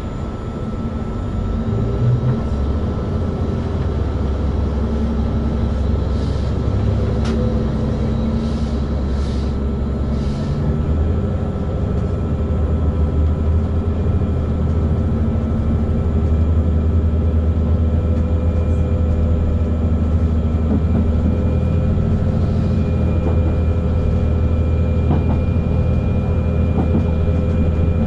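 Diesel train's engines pulling away from a standstill and accelerating, heard from inside the passenger car. A low, steady engine drone grows louder about two seconds in, and the engine note shifts about ten seconds in as the train gathers speed.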